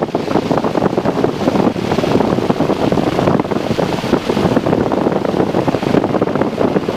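Zenith 601XL-B light aircraft's engine and propeller running steadily during taxi, heard in the cockpit as a loud, even rushing roar with a rough flutter on the microphone.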